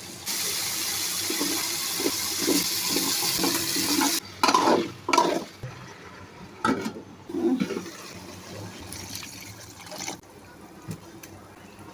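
Water rushing steadily for about four seconds, then cutting off abruptly, followed by a few short knocks and clatters.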